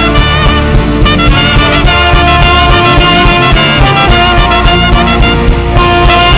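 Live worship band playing an instrumental passage: a horn lead, trumpet or saxophone, holds long wavering notes over a steady bass and band backing.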